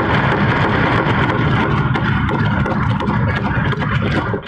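A loud, continuous din of many lawmakers in an assembly chamber: rapid desk-thumping mixed with many voices at once, dying away near the end.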